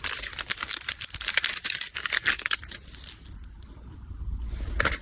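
Plastic packaging rustling and crinkling in irregular clicks and crackles as it is handled, busiest in the first three seconds and thinning out after that.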